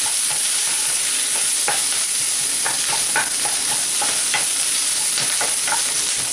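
Onion pieces sizzling steadily in hot olive oil in a pan, with a spatula scraping and stirring through them in short strokes.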